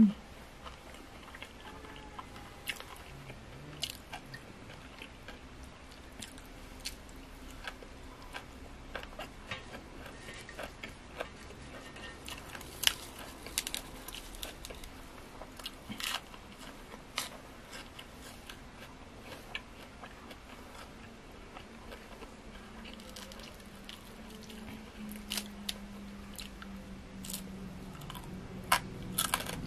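Close-miked chewing and crunching of a person eating grilled frog with sticky rice and fresh leafy vegetables, with scattered sharp crunches and mouth smacks.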